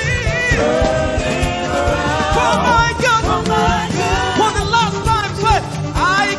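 Gospel worship music: a singer's voice sliding and wavering through runs over a band with a steady beat.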